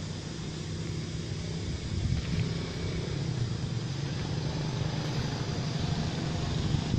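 Steady low rumble with a hiss over it, a little louder from about two seconds in.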